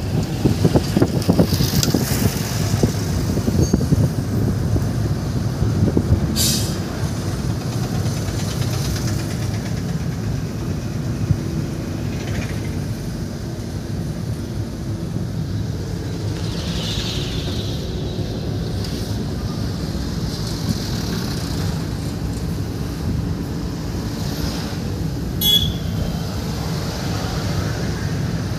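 Road and engine noise from inside a moving car, a steady low rumble, with a short sharp click about six seconds in and another near the end.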